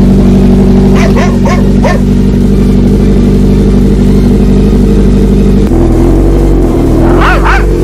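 Kawasaki Z1000's inline-four engine idling steadily and loudly through an aftermarket exhaust; its note shifts slightly a little over two-thirds in. A dog barks four times about a second in, and again a few times near the end.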